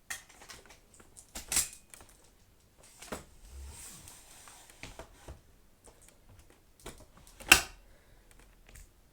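Handling noises from a switched-off upright vacuum cleaner: scattered plastic clicks and knocks, the loudest a sharp click about seven and a half seconds in, with a short rustle around four seconds.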